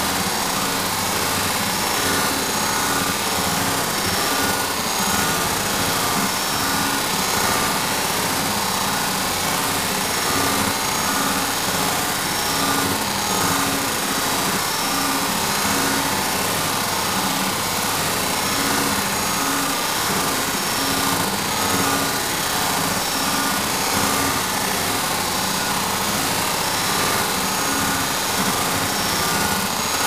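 Sci-fi sound effect of an alien power generator: a steady, unbroken machine hum and whir over a bed of hiss, with faint tones that repeat on and off.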